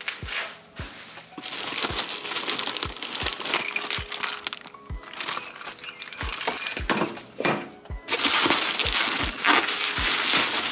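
Background music with a beat of low thumps.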